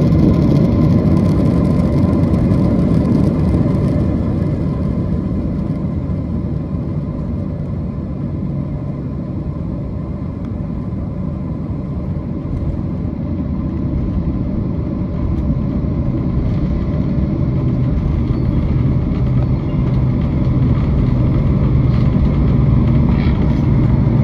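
Jet airliner cabin noise during the landing rollout: a loud rumble of engines and runway that eases over the first ten seconds or so as the plane slows. In the second half the engine noise builds again, with a low steady hum, as the jet taxis.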